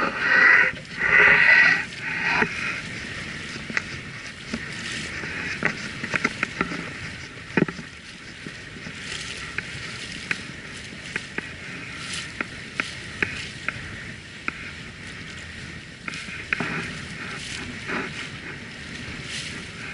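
Water rushing and splashing along the hull of a sailboat under sail, louder in the first couple of seconds. Scattered small clicks and ticks run through it.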